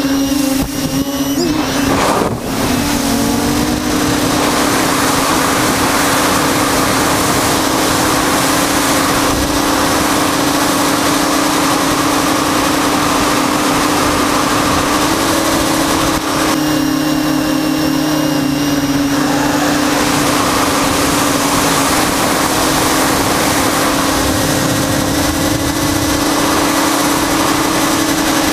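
Tricopter's brushless motors and propellers whining steadily in flight, with wind rushing past the onboard camera. The pitch dips briefly about two seconds in and steps up a little about halfway through as the throttle changes.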